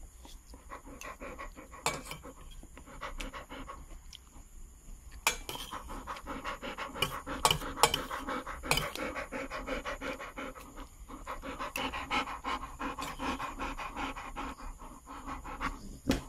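Rottweiler panting close up, getting louder about five seconds in, with a few sharp clicks along the way.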